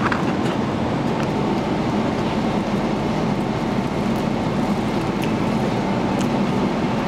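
Steady roar of an airliner cabin in cruise flight: jet engine and airflow noise, with a few faint clicks.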